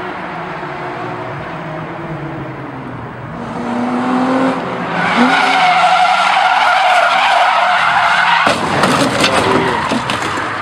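Sports car engine revving up and down with tyres squealing loudly through a drift from about halfway in. Near the end the squeal stops and gives way to a rough, clattering scrape as the car slides into the kerb.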